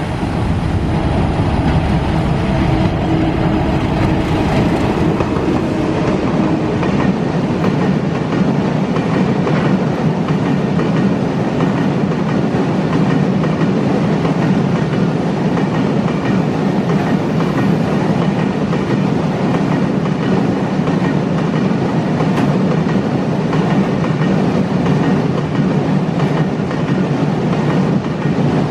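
Broad-gauge diesel-hauled oil tanker freight train passing close by: the locomotive's engine is heard in the first few seconds, then a long string of tank wagons rolls past with steady wheel noise on the rails.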